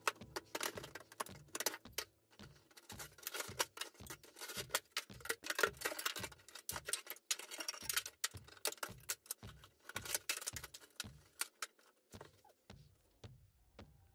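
Old wood inside an opened wall cracking, snapping and knocking as pieces are broken and pulled out by hand, with debris rattling. Irregular, rapid cracks that thin out to a few near the end.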